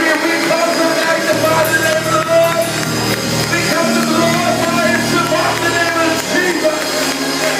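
Gospel group singing live with musical accompaniment.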